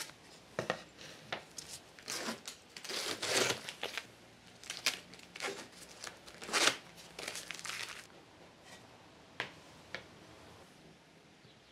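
Blue painter's tape being peeled off a plywood piece and crumpled, in irregular tearing and crinkling bursts. Then two light knocks as the thin plywood pieces are handled on the bench.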